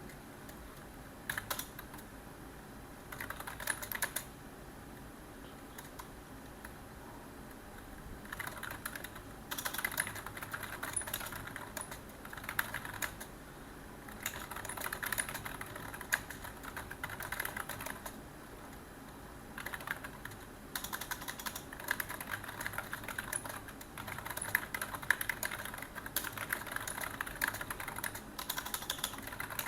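Computer keyboard typing in bursts of rapid keystrokes a few seconds long, with short pauses between them, over a low steady hum.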